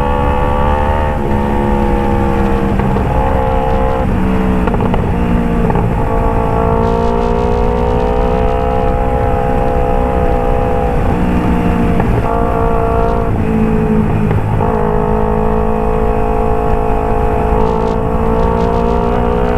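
Kawasaki Ninja 250 FI parallel-twin engine breathing through a Phoenix aftermarket exhaust, running at a fairly steady pitch that dips and climbs again a few times as the throttle changes while riding.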